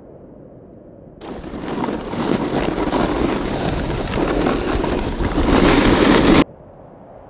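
Snowboard sliding and carving over groomed snow, a loud scraping hiss. It swells in about a second in and cuts off abruptly near the end.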